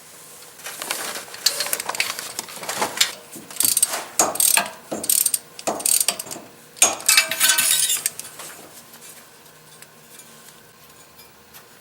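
Ratchet wrench clicking in repeated back-and-forth bursts as a spark plug is unscrewed from a Ford 5.0-litre (302) V8, from about a second in until about eight seconds in.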